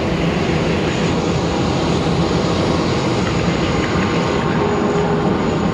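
Boeing 737 jet engines running, a loud, steady noise that does not change.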